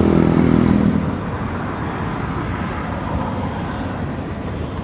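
A low engine drone with an even hum that fades about a second in, leaving a steady rumbling wash.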